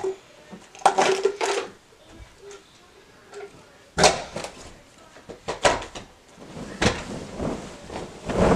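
Knocks, thuds and rustling of a person moving about close by and handling things, with a cluster about a second in and separate sharp knocks about four, five and a half, seven and eight and a half seconds in.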